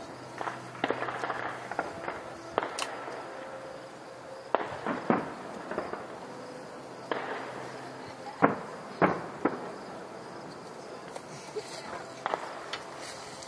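Fireworks bursting: an irregular series of sharp bangs and pops, sometimes several a second, with short gaps between clusters.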